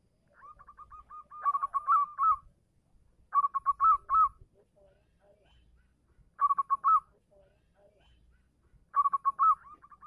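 Local zebra dove (perkutut) singing: phrases of rapid, clipped coo notes about a second long, four times, the first led in by a softer run of the same notes. This is a male's song to call a female.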